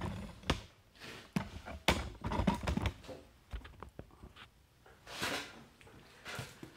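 Handling noise from the camera being set up and positioned: a series of short knocks and thuds, then a couple of brief rustles.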